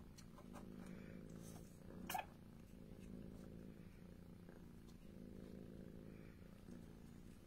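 A Turkish Angora cat purring softly and steadily. A short, sharp click comes about two seconds in.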